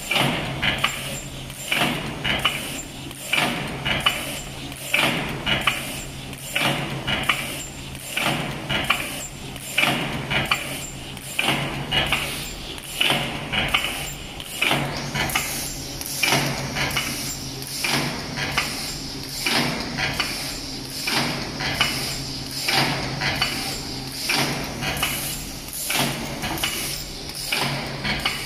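Automatic paper lunch box forming machine running, its mechanism clacking in an even rhythm of a little more than one stroke a second as it presses out boxes. A steady high hiss joins about halfway through.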